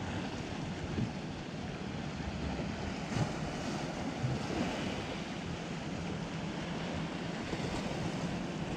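Wind on the microphone over water lapping around a kayak, a steady rush with a few light knocks.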